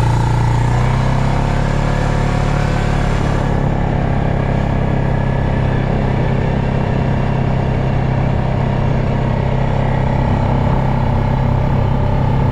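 Quad bike engine running steadily while being ridden along a bumpy track.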